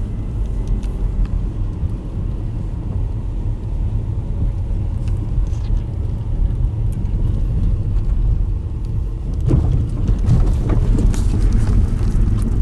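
A car driving, with a steady low rumble of engine and road noise. A few light knocks and some rising sounds come in during the last few seconds.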